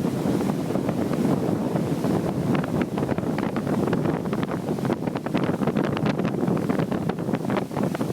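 Strong gusting wind buffeting the microphone: a dense low rumble shot through with many short crackling pops.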